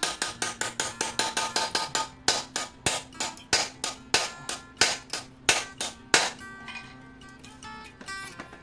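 Metal-on-metal strikes, like hammer blows, on a steel bar held against a gasoline generator's alternator rotor. Quick taps come about six a second at first, then slower, heavier blows about three a second, dying away about six seconds in. Background music plays underneath.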